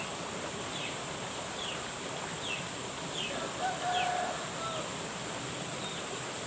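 A bird repeating a short, falling call about once a second over steady outdoor hiss and a thin, high insect drone.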